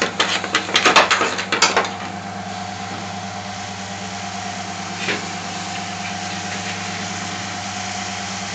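Steady mechanical hum of busy commercial kitchen machinery, with a quick run of metal clatters and knocks at the stove in the first two seconds and one more knock about five seconds in.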